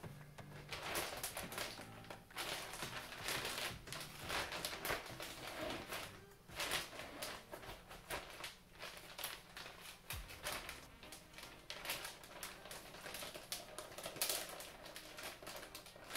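Clear plastic grow bag crinkling and rustling in irregular bursts as it is lifted and worked by hand, mixing just-boiled water through the hardwood pellet and soy hull substrate inside.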